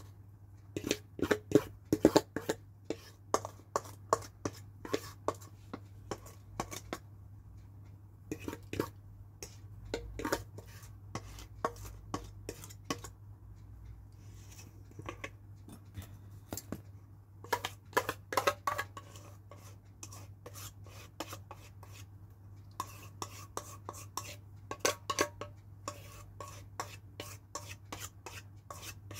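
Quick runs of sharp clinks and taps on a stainless steel mixing bowl as the banana cake batter is scraped out into the baking pan, with a steady low hum underneath.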